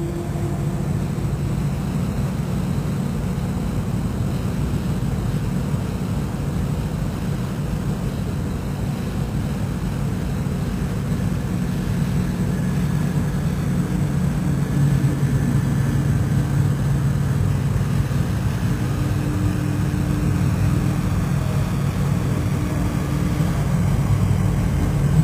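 Tugboat engine running with a steady low drone, getting a little louder about halfway through.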